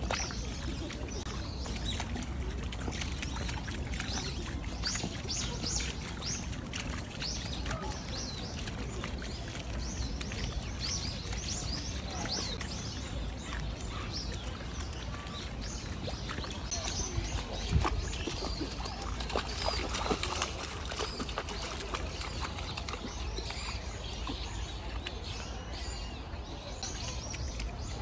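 Small birds chirping in short, repeated calls over a steady low outdoor rumble and the trickle of a shallow stream, with a single knock a little after halfway.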